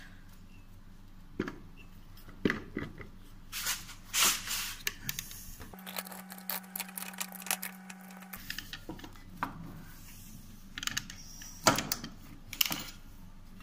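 Scattered metallic clicks, knocks and clatter as a scooter's front wheel and its brake panel are worked off the axle by hand. A steady hum runs for a couple of seconds about six seconds in.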